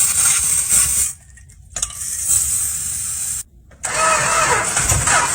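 A 1969 Chrysler Newport's 383 big-block V8 being cranked by its starter in three stretches broken by short gaps, turning over without catching. The last stretch has a regular pulsing rhythm.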